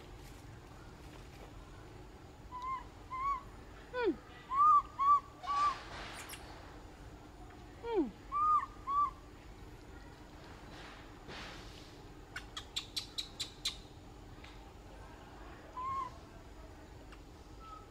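Baby macaque crying for its mother with short, arched coo calls, some single and some in quick runs of two to four. Two brief steeply falling squeals come about 4 and 8 seconds in, and a quick run of sharp clicks about two-thirds of the way through.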